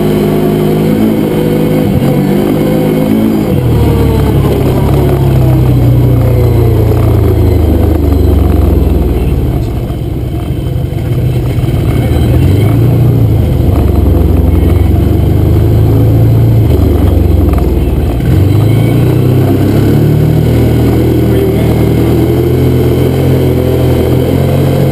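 Can-Am off-road vehicle's engine running under way over rough ground. The revs drop for several seconds starting about four seconds in, then climb again over the last few seconds.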